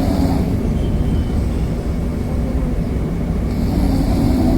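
A man snoring in his sleep, two snores about four seconds apart, one at the start and one near the end, over a steady low rumble.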